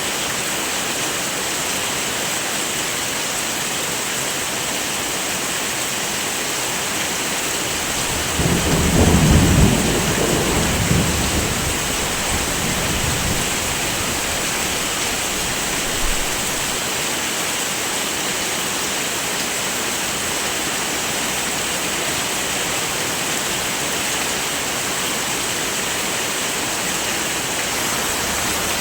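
Steady heavy rain, with one roll of thunder rumbling in about eight seconds in and dying away over about five seconds. A brief low thump follows a few seconds later.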